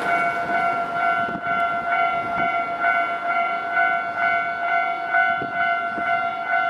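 Japanese level crossing warning alarm on the Nankai line, ringing its electronic bell tone in steady, even strokes about twice a second.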